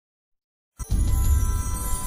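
Silence, then intro music cuts in a little under a second in, with heavy bass and held tones.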